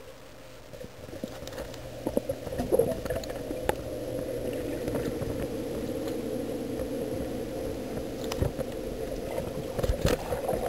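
Suction-side automatic pool cleaner running on the pool floor, heard underwater: a steady whirring hum that builds over the first few seconds, with occasional sharp knocks.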